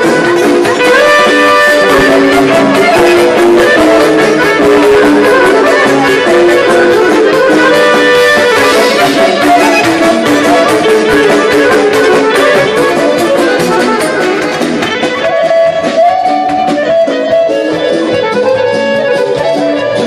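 Live band music: a Guerrini piano accordion and a violin play fast melodic runs over keyboard and drums.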